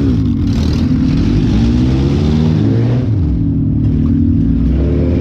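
Compact car's engine revving up and falling back several times in quick succession, heard from inside the car.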